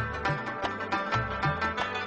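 Background music: South Asian folk-style instrumental with plucked string notes over a repeating bass line at a steady beat.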